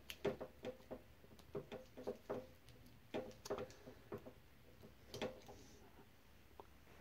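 Faint, irregular clicks and taps of wires and a small plastic connector being handled as the motor's Hall sensor plug is pulled apart; the motor itself is not running.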